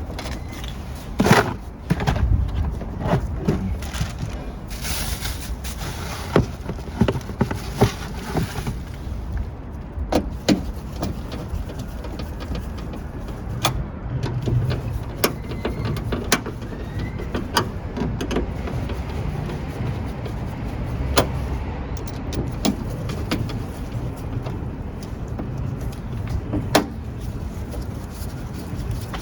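Irregular clicks and knocks of metal and plastic parts as a rear wiper motor is fitted into a car's hatch, with a rustling hiss for a few seconds near the start.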